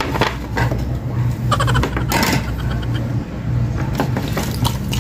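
Orange soda being poured from a glass bottle into a drinking glass, with scattered clinks and taps at the table, over a steady low hum.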